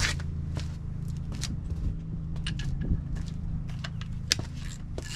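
Metal tools clinking and clicking as a ratchet and socket are handled, scattered irregular clicks over a steady low hum.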